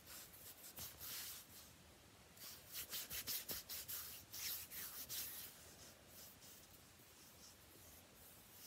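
Fingernails scratching bare skin in quick repeated strokes, close to the microphone, at several strokes a second and loudest in a burst through the middle; fainter, scattered strokes near the end.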